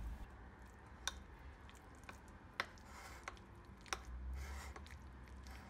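Metal spoon stirring grated cheese into sour cream in a ceramic bowl: faint soft squishing, with a few light clinks of the spoon against the bowl, the clearest about one, two and a half and four seconds in.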